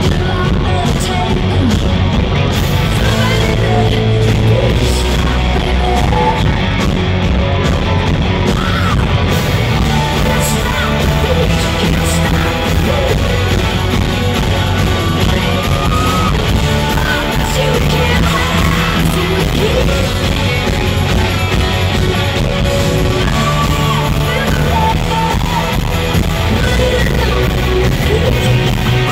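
Live rock band playing loudly: a woman singing lead over electric guitars and drums, recorded from the audience in a large hall.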